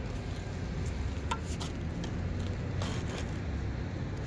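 Steady low rumble of road traffic, with a few faint clicks from bricklaying work about a second and a half in and again near three seconds.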